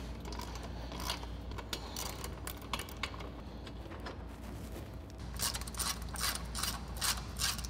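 Ratchet wrench clicking as bolts are loosened, a few scattered clicks at first, then a quicker run of clicks from about five and a half seconds in.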